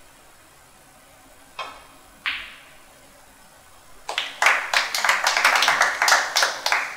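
Snooker balls: the cue tip strikes the cue ball, and about a second later a louder ball-on-ball click rings out. About four seconds in, a small audience bursts into clapping that carries on to the end.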